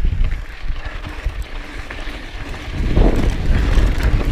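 Wind rumbling on the microphone as a mountain bike rolls down a dirt trail, with tyre and trail noise; it grows louder about three seconds in.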